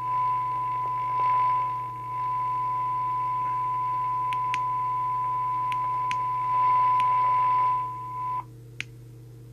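Midland M-Mini FM CB radio's speaker sounding the steady 1 kHz test tone from a signal generator, with hiss that swells and fades as the signal level nears the receiver's threshold. Near the end the tone cuts off abruptly as the squelch closes, followed by a single click.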